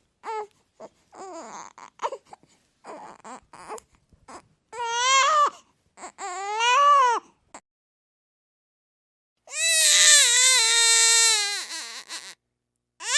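Infant crying: short broken whimpers and sobs, then two rising-and-falling cries about five and seven seconds in, and after a short pause a long, loud wail followed by catching sobs.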